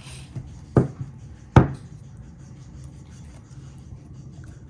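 Hand slapping cornstarch-and-water slime (oobleck) twice, the second slap louder, then faint squishing and rubbing of the slime.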